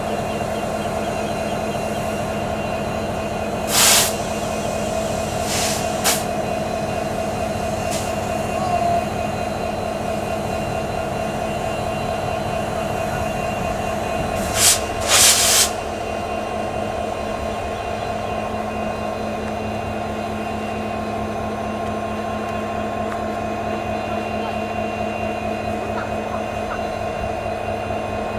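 Two CC 205 diesel-electric locomotives idling with a steady, humming engine drone. Short sharp hisses break in several times, two of them close together about halfway through. After these the deep rumble eases a little.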